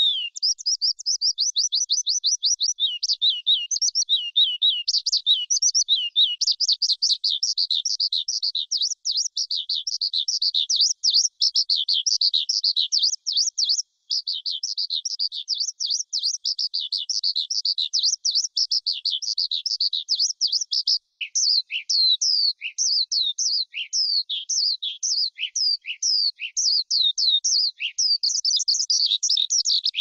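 Skylark singing a long, nearly unbroken stream of rapid, high chirping notes, with some lower notes mixed in during the second half.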